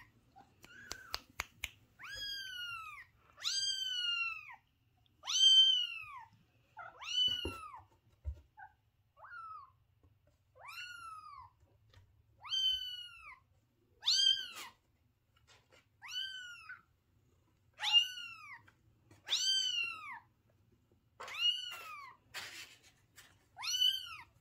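A young kitten mewing over and over, one high-pitched call about every second and a half, each rising and then falling in pitch.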